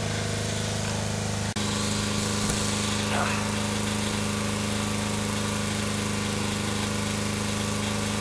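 Steady low electrical hum of a battery charger running on fast charge, with a brief break about a second and a half in.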